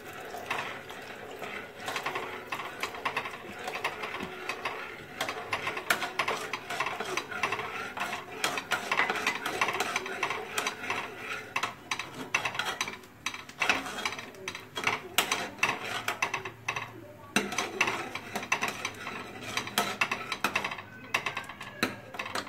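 Metal ladle stirring milk in a metal pot on the stove, scraping and clinking against the pot's bottom and sides in a quick, irregular run of knocks. The milk is thickening as custard powder mixed in cold milk is stirred in.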